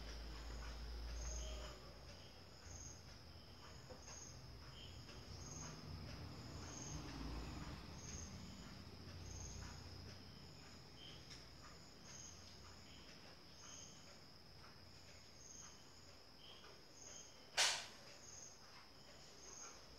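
Faint, steady high-pitched whine with a short high chirp repeating evenly about every 0.6 seconds. A single sharp click comes near the end.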